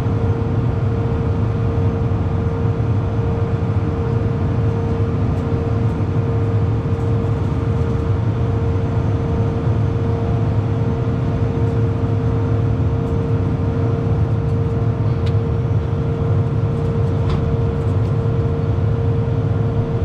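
John Deere S680 combine running, heard from inside the cab: a steady engine drone with a steady whine on top that stops near the end, and a few faint clicks.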